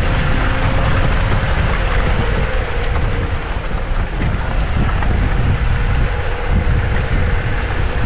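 Steady vehicle noise from inside a Jeep driving on a dirt trail: deep engine and tyre rumble with a faint steady whine.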